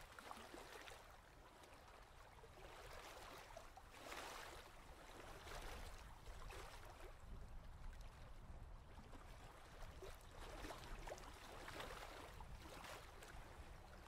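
Near silence: a faint, even outdoor background hiss that swells softly a few times.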